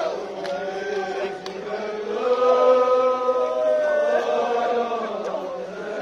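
Men's voices chanting a nouha, a Shia mourning lament, in drawn-out notes, with a long held note in the middle. A few sharp slaps sound near the start and once more near the end.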